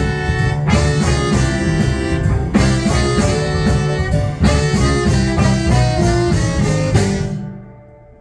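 Live blues band playing the instrumental close of a song after the vocals end. The music stops about seven seconds in and the last chord dies away.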